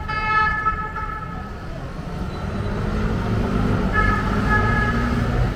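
Emergency-vehicle siren sounding in city traffic: a steady high tone for about the first second, then a shorter, broken return about four seconds in, over a constant low rumble of traffic and engines that swells in the second half.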